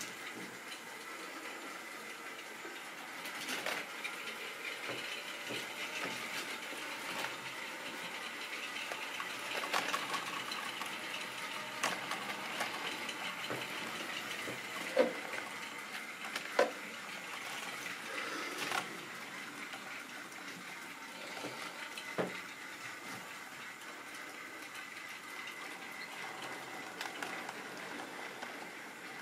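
Model railway freight train rolling past on sectional track: a steady rattling hiss of plastic wagon wheels on metal rails with a thin steady whine, and a few sharp clicks over rail joints in the middle.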